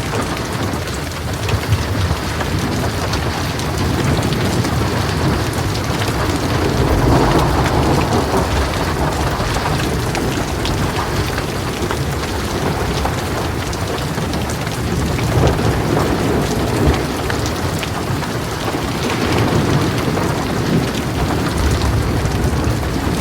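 Heavy rain pouring steadily, with thunder rumbling through it in several swells and a couple of sharp cracks.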